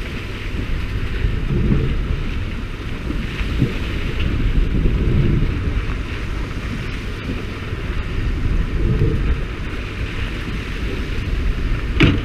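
Fishing boat's engine running under wind buffeting the microphone, with a steady hiss and splash of water spraying onto the sea alongside the hull. A single sharp knock near the end.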